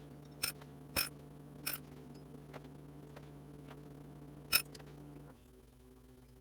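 A few sharp, light clicks of small metal transmission parts being handled, such as needle bearings and washers for the cluster gear. Under them runs a steady low hum that stops about five seconds in.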